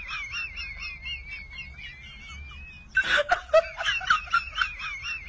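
A high-pitched, warbling voice-like sound clip, played twice in a row: it starts over about three seconds in.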